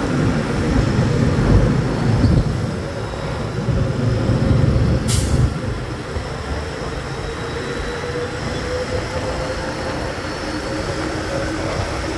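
Motorcycle ride in traffic close behind a cement mixer truck: a heavy low rumble with wind noise, loudest in the first half, then an engine hum that slowly rises in pitch. A brief hiss about five seconds in.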